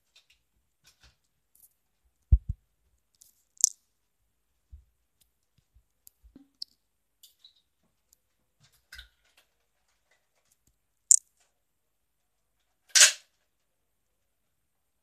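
Scattered sharp clicks and knocks in a quiet room: a low thump about two seconds in, sharp clicks a little later and around eleven seconds, and a louder short burst near the end.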